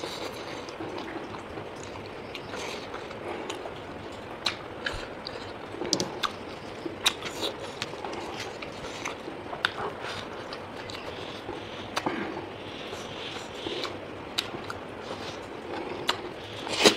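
A person eating: quiet chewing, with scattered sharp clicks every second or two.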